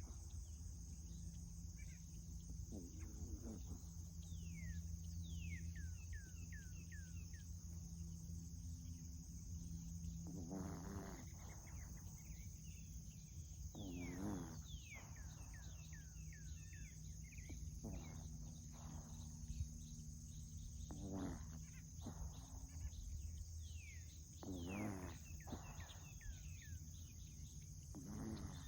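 Dachshund puppy snoring, one drawn-out snore every few seconds, about seven in all.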